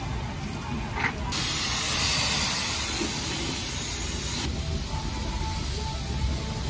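High-pressure water spray hissing against a car. It is loud from about a second in until past the midpoint, then drops to a quieter hiss, over a steady low rumble.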